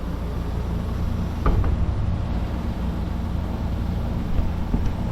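A steady low machine hum from something just switched on, with a sharp click about one and a half seconds in.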